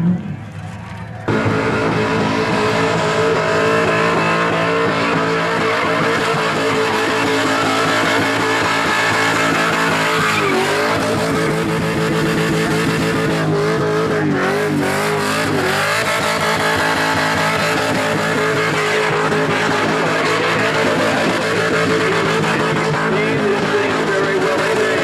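Holden Commodore V8 held at high revs through a burnout, the tyres spinning and squealing. It comes in suddenly about a second in, then holds steady, with two brief dips and wavers in revs partway through.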